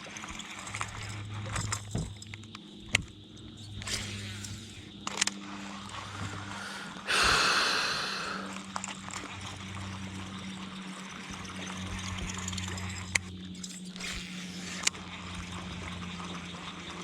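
Bass fishing from a boat: a steady low hum under several sharp clicks, and one loud rushing noise about seven seconds in that dies away over a second or so.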